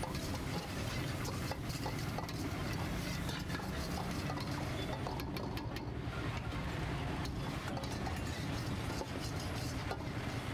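Metal spatula scraping and clinking against a steel wok as food is stir-fried, in quick irregular clicks, over steady street noise.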